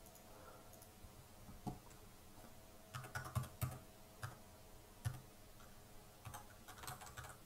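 Computer keyboard typing: faint, scattered key clicks in a few short runs, with pauses between them.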